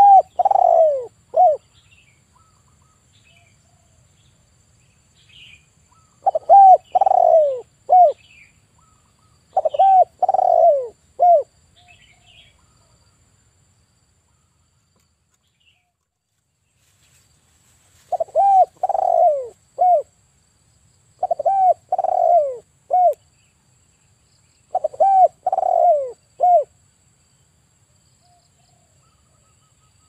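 Male spotted dove cooing: six phrases, each of a few falling coos ending on a short clipped note, with pauses between phrases and a longer silence about midway.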